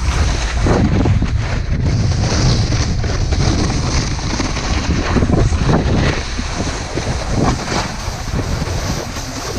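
Wind buffeting the microphone over the scraping hiss of a snowboard's edges carving across the snow, rising and falling with each turn.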